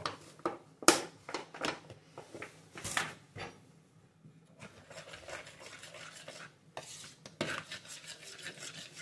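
A kitchen utensil clinking and knocking against a mixing bowl, then steady scraping and stirring from about halfway through as flour is worked into a bread dough.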